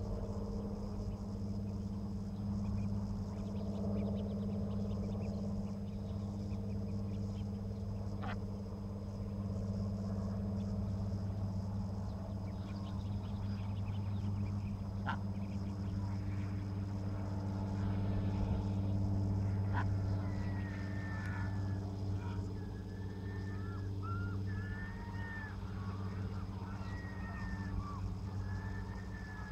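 Mallard ducklings peeping in a run of short, thin, arched calls in the second half, over a steady low engine hum.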